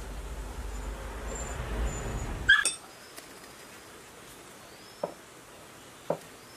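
Small hand tool worked against a metal lathe handwheel: low rumbling handling noise, then a short high-pitched chirp about two and a half seconds in, then two light metallic clicks about a second apart.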